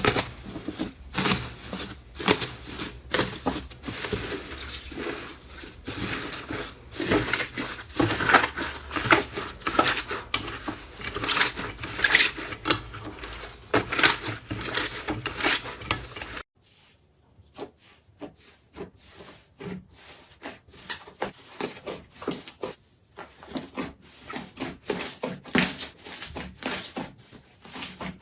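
Slime being squeezed and pressed by hand, giving a rapid stream of sticky clicks, crackles and pops. About 16 seconds in it cuts to a quieter clip with fainter, sparser clicks.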